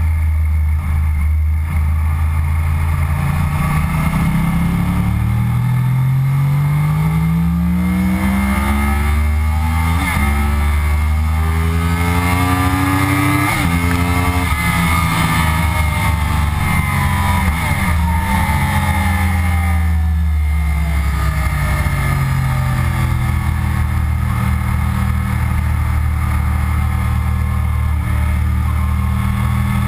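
Onboard sound of a 2009 Yamaha R1's crossplane inline-four engine ridden hard on track. The engine note climbs steadily in pitch for about ten seconds, falls away for several seconds, then runs at a steadier pitch near the end.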